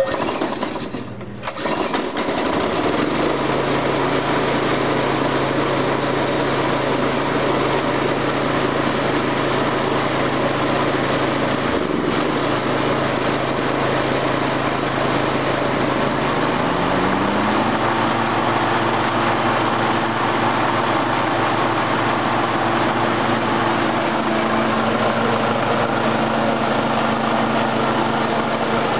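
Briggs & Stratton 825 Series single-cylinder OHV engine on a walk-behind field and brush mower starting with the key on its first start after a cylinder head replacement, catching about two seconds in and running steadily. About seventeen seconds in it revs up to a higher steady speed.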